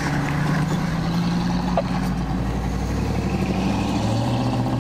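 Road vehicle engines running with a steady low hum, its pitch stepping down slightly about four seconds in, as cars pass on a wet road.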